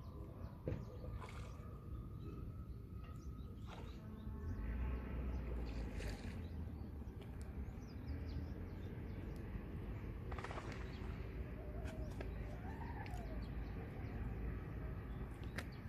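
Outdoor ambience with scattered bird chirps and calls over a steady low rumble that swells about five seconds in, with a few faint clicks.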